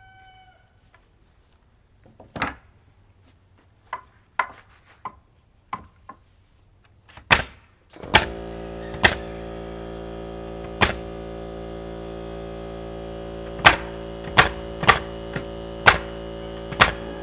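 A nail gun firing nails into framing lumber: sharp single shots at uneven intervals, about a dozen in all. Background music with held chords comes in suddenly about eight seconds in and runs under the later shots.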